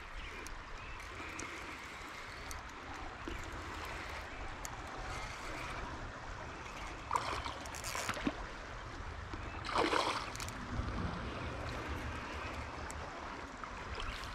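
Steady rush of river water, with a few short splashes about seven, eight and ten seconds in as a hooked smallmouth bass is played up to the bank.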